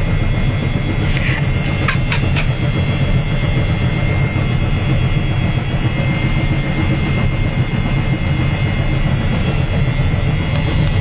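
Washing machine on its spin cycle: a steady loud rumble with a thin high whine.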